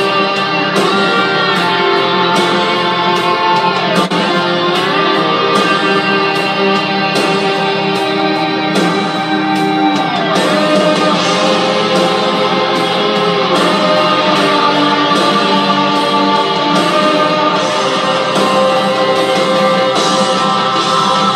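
Guitar-led music: long held notes that now and then bend in pitch, over repeated percussive hits.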